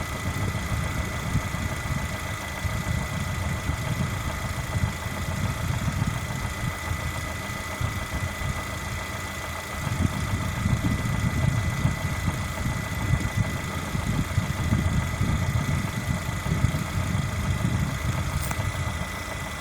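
Lada Granta's VAZ-21127 1.6-litre 16-valve four-cylinder engine idling hot with a knock, the hot-engine knock the owner is complaining about. It gets louder about halfway through.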